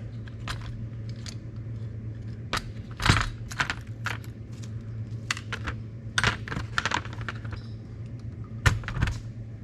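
Small metal screws and carburetor parts clinking and rattling as they are picked up and handled on a metal baking sheet, in irregular clicks with the loudest clinks about three seconds in and near the end. A steady low electrical hum runs beneath.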